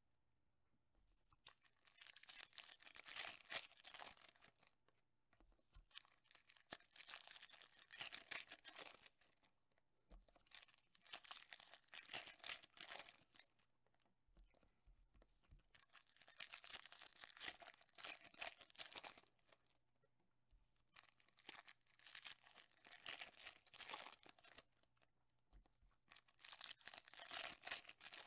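Foil trading-card pack wrappers being torn open and crinkled. It comes faintly in about six bouts of a few seconds each, with short pauses between them.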